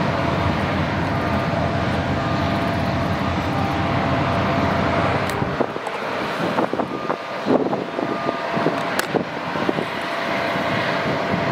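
Airbus A330-900's Rolls-Royce Trent 7000 jet engines running at taxi power: a steady whine and rumble with a few held tones. About halfway through the deep rumble drops away, and irregular sharp crackles come in over the engine noise.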